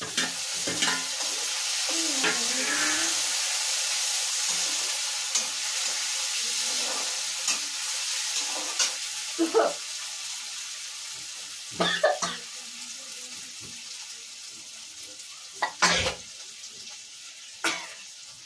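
Chopped tomatoes sizzling in hot oil as they go into a pan of softened fried onions: the sizzle comes up suddenly and slowly dies away. A spoon stirs and knocks against the pan several times in the second half.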